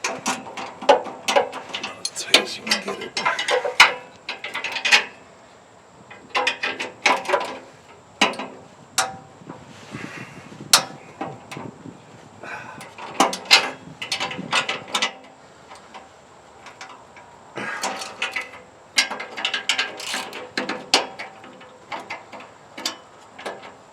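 Hand ratchet wrench clicking in repeated bursts of quick strokes, with short pauses between, as bolts are turned by hand.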